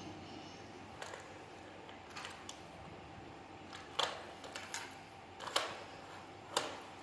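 Irregular plastic clicks and knocks as a small plastic toy is handled and bumped against the plastic tray of a baby walker, the loudest knocks about four, five and a half and six and a half seconds in.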